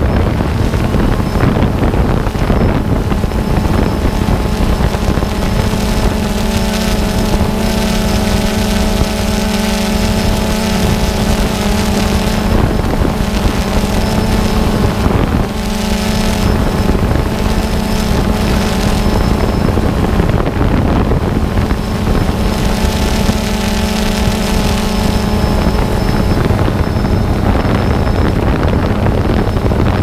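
DJI Phantom 2 quadcopter's four electric motors and propellers humming steadily, picked up by the GoPro on the drone itself, with wind rushing over the microphone. The hum dips briefly about halfway through.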